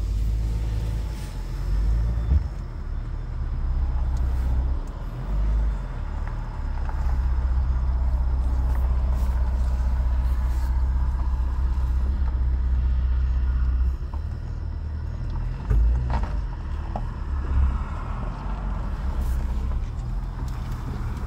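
Jeep engine and drivetrain running with a low rumble while it reverses slowly out of shallow water, heard from inside the cabin. The rumble is steadiest through the middle and eases off about two-thirds of the way through, with a few short knocks as the vehicle bumps over the ground.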